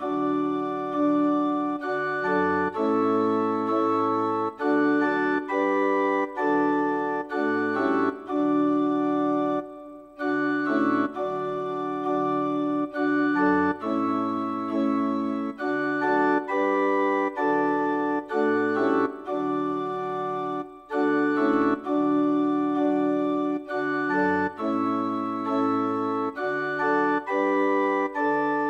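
Organ playing slow, sustained chords phrase by phrase, with short breaks between phrases about ten and twenty-one seconds in.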